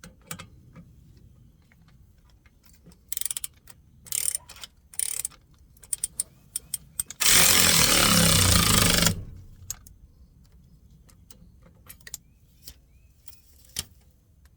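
Hand ratchet and wrench clicking and ticking on brass push-to-connect air fittings, with a few short scrapes. About halfway through comes a loud, steady rushing hiss lasting about two seconds.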